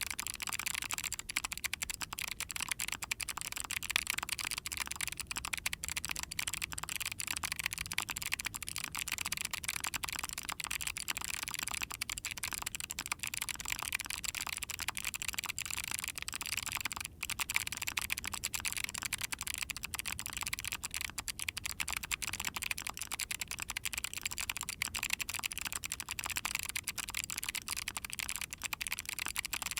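Fast, continuous typing on an ai03 Vega mechanical keyboard with factory-lubed Kailh Arctic Fox clicky switches in a POM plate. The keys give a dense stream of sharp, crisp clicks.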